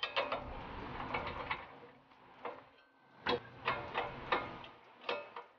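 Hand ratchet clicking in short runs as the lower ball joint nut is backed off, with a handful of louder separate clicks in the second half.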